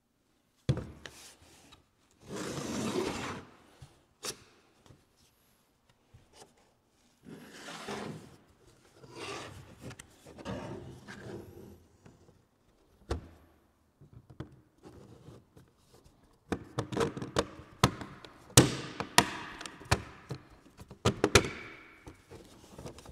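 3D-printed plastic socket organizer rails being handled on a table: sharp knocks as pieces are set down, with stretches of plastic sliding and rubbing. Near the end comes a dense run of clicks and knocks as the dovetailed pieces are pushed together.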